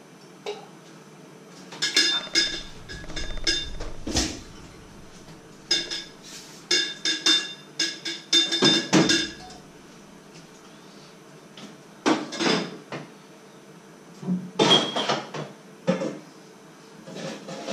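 Pots, pans and dishes being handled, clattering and clinking against each other with some ringing metal clinks. The clatter comes in several bursts with short quiet gaps between them.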